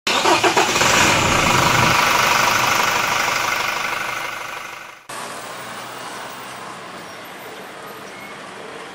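A loud intro sound effect: a few quick pulses, then a steady rush that fades out over about five seconds. After a sudden cut, the diesel engine of a Hino container truck running steadily as it turns at the roadside, with traffic noise.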